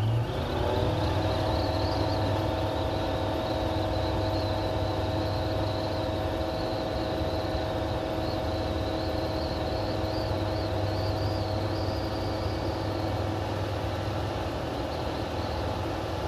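Light aircraft engine and propeller of a Zenith CH-650 running at climb power: a steady drone whose pitch rises slightly in the first second and then holds even.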